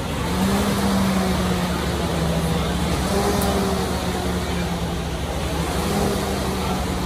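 RP3 Model T dynamic rowing machine's flywheel fan spinning with a steady deep whoosh and hum. The pitch rises with each drive stroke and sinks on the recovery, about once every three seconds.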